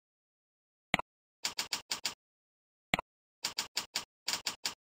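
Computer keyboard keys clicking as a username is typed in five quick strokes, then a password in two runs of four. Each run follows a single mouse click.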